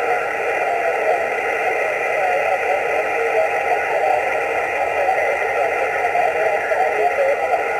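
Steady hiss and static from a Yaesu HF transceiver's speaker tuned to the 20-metre amateur band, held within a narrow voice-width band with nothing intelligible coming through.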